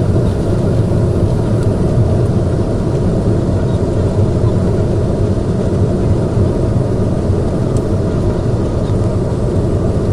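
Steady low rumble of Airbus A321neo cabin noise heard from a window seat during landing: engine and airflow noise holding even, with no thumps or sudden changes.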